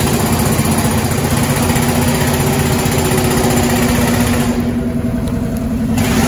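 An engine running steadily at one pitch, under a rushing noise. The upper hiss of the noise drops away for about a second and a half near the end while the engine sound carries on.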